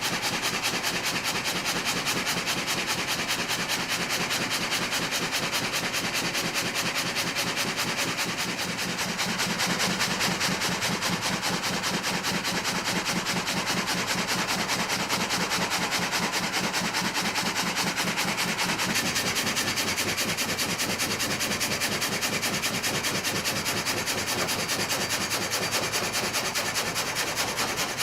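Continuous machine noise with a rapid, even pulse, steady throughout and swelling slightly about ten seconds in.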